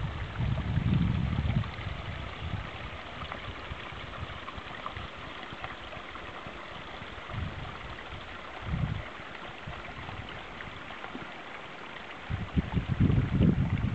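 Wind buffeting the microphone in low rumbling gusts: near the start, twice in the middle, and more strongly near the end, over a steady rushing background.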